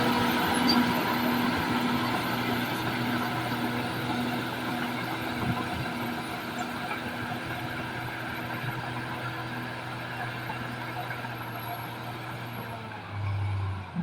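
Bulldozer's diesel engine running steadily, slowly growing quieter, with a short low hum near the end.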